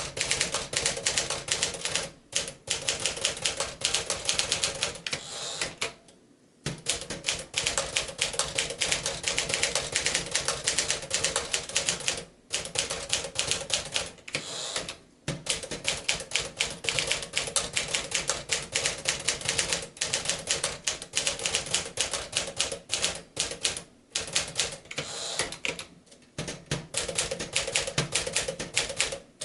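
A 1957 Smith-Corona Clipper manual portable typewriter typing at a fast, steady pace, with rapid key strikes broken by a few short pauses.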